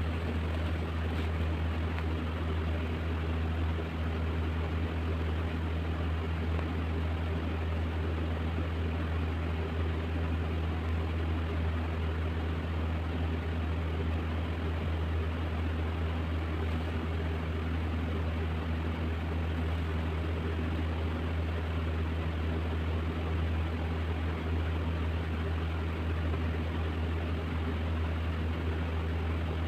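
A steady low machine hum with an even hiss above it, unchanging.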